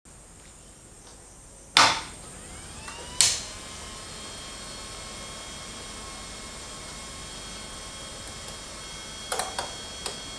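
Two sharp clicks of the power amplifier and parametric tone control being switched on, about two and three seconds in, with a faint rising tone between them. After the second click a steady faint hiss with thin steady tones runs on, and a few smaller clicks come near the end.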